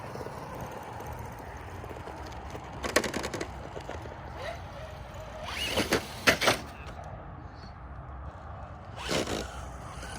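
Traxxas TRX-4 radio-controlled truck being driven, its electric drivetrain whirring steadily, with short bursts of scraping and clattering from the truck scrabbling over hard snow, about three, six and nine seconds in.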